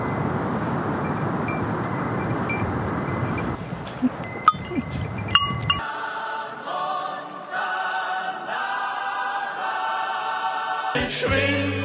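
Rushing wind with small bells tinkling for the first half, then an abrupt cut to soft background music of held, choir-like chords, with a deep bass entering near the end.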